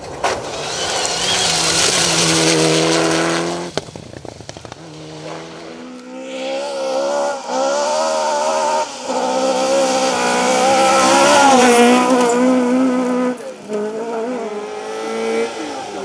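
Rally cars on a gravel stage at full throttle: first a Mitsubishi Lancer Evolution, then a Mk2 Ford Escort, engines revving hard and rising in pitch, with the revs dropping back at each gear change. Gravel and grit spray with a hiss under the engine.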